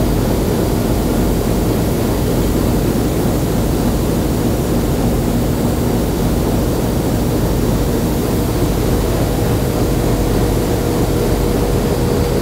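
The WDM2 diesel locomotive's ALCO 16-cylinder turbocharged engine running steadily, heard from inside the cab as a loud, unbroken drone. A steady higher tone joins it about eight seconds in.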